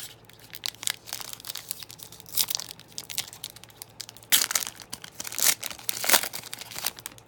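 A trading-card pack's wrapper crinkling and tearing as it is ripped open by hand, with several louder crackles along the way.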